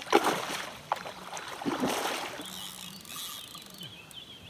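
Water splashing in two surges about a second and a half apart as a hooked grass carp is played close in to the bank, with a sharp click about a second in.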